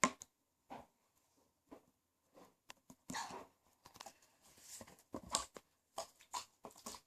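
Slime being played with by hand for ASMR: irregular short squishes and pops, with longer crackly stretches about three and five seconds in.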